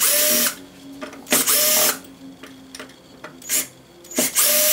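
Cordless drill-driver with a Phillips bit whirring in three short bursts, each about half a second, as it backs out the three screws joining the gearbox to the motor of an electric golf buggy.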